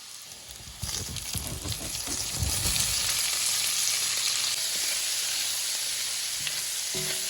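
Sausage going into a hot skillet of onions and bacon drippings: a few low thumps as it lands and is moved about, and the frying sizzle jumps up about a second in and then holds loud and steady.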